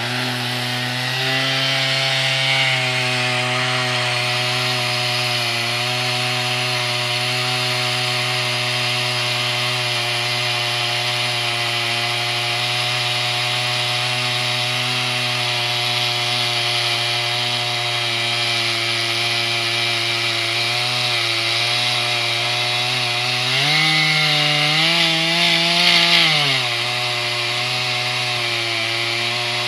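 Chainsaw mounted on an Alaskan chainsaw mill, running steadily under load as it rips a lengthwise cut through a monkey puzzle log. Its engine note rises and wavers for a few seconds toward the end, then settles back.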